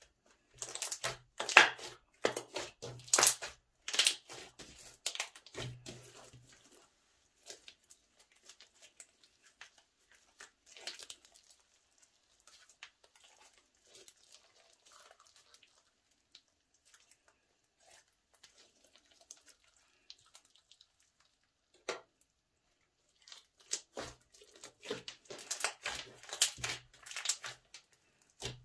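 Slime being stretched, squeezed and pressed by hand: sticky crackling and small pops. The noises come in busy clusters over the first seven seconds and again in the last five, with only scattered faint pops in between.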